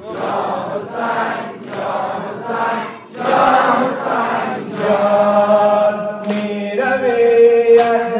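Men's voices chanting a Muharram nawha (mourning lament) together in rhythmic phrases, which give way about five seconds in to long held sung notes. A few sharp strikes of chest-beating (sineh-zani) sound through the chant.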